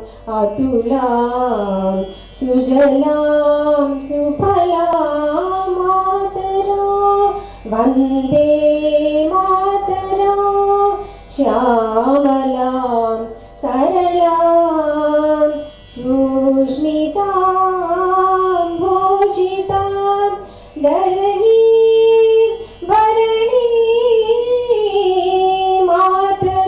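A woman's voice singing solo: a slow devotional melody in phrases of about two seconds, with gliding, ornamented notes and short breaths between phrases.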